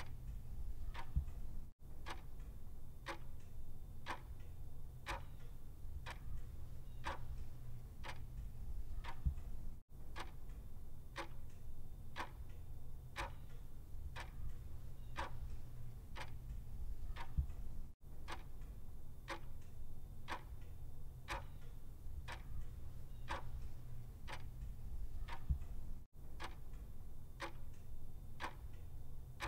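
Clock ticking steadily about once a second, with a low steady hum beneath and a brief gap roughly every eight seconds.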